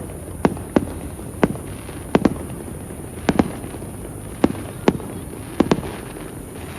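Aerial fireworks shells bursting: a string of sharp bangs, roughly one or two a second at uneven spacing, several of them in quick pairs.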